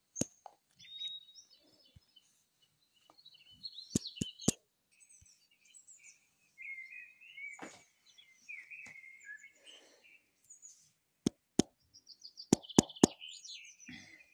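A small bird chirping and twittering on and off. Sharp clicks come in quick runs about four seconds in and again near the end.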